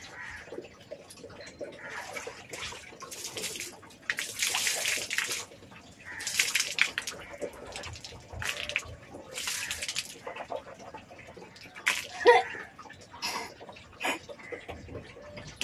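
Water splashing and sloshing at a wash basin during mouth and face washing, in a series of loud hissing bursts about a second long, with a sharper, louder one about twelve seconds in.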